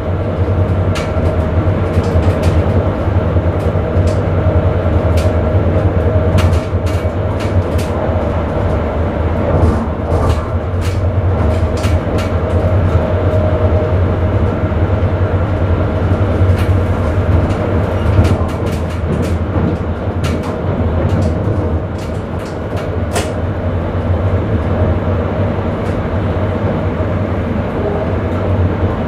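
Electric Sprinter commuter train running, heard from inside the driver's cab: a steady low rumble with irregular sharp clicks from the wheels on the track.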